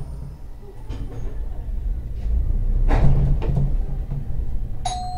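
Hakodate City Transportation Bureau 8000-series tram heard from inside, pulling away: a low rumble of motor and wheels on rail that builds over the first few seconds, with a knock about three seconds in. Near the end, a two-note falling chime sounds from the tram's onboard announcement system.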